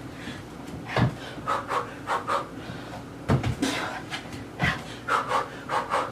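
A person panting hard in short, quick breaths, often in pairs, while doing a kickboxing and sprawl interval. A few dull thumps on the floor come in between.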